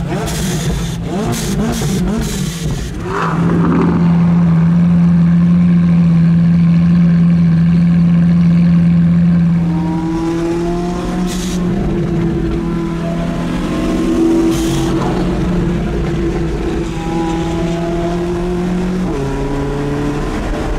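Supercar engine running under load. Its pitch wavers at first, rises about three seconds in and holds a loud steady note for about six seconds, then runs on a little quieter with the pitch shifting in short steps and dropping near the end.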